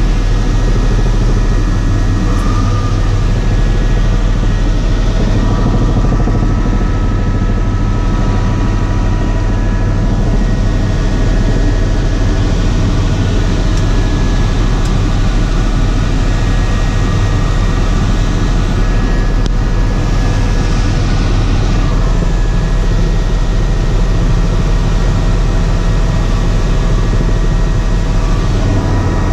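Helicopter engine and rotor noise heard from inside the cabin in flight: a loud, steady drone with a deep low hum and a few steady higher tones over a rushing noise.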